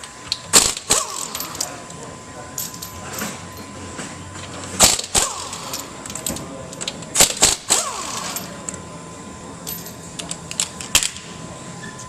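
Irregular sharp clicks and clanks of hand tools and metal car parts being handled during disassembly, a few ringing briefly, the loudest about five seconds in and again around eight and eleven seconds in. A faint steady high tone runs underneath.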